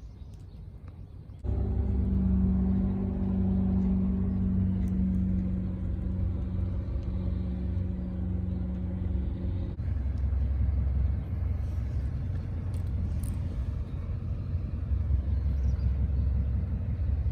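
Steady low rumble of a running motor vehicle that starts suddenly about a second and a half in. A humming drone rides on it until about ten seconds in, then only the rumble goes on.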